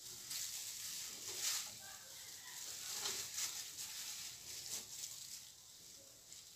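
Thin plastic food-prep gloves crinkling and the flatbread wrap rustling and scuffing against the aluminium pan as it is pressed and turned, in uneven bursts.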